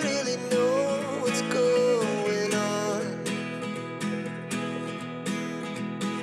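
Background music: strummed acoustic guitar keeping a steady rhythm, with a wavering melody line over it in the first two seconds.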